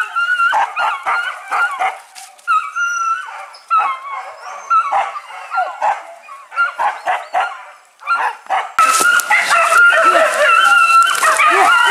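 Hunting dogs yelping and barking in quick, high-pitched, wavering calls. About nine seconds in, several dogs join into a dense, louder chorus of yelps.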